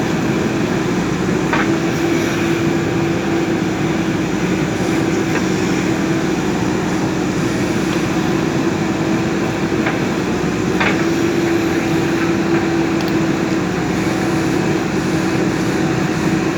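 JCB backhoe loader's diesel engine running steadily, with a constant hum and a couple of faint knocks about a second and a half in and again about eleven seconds in.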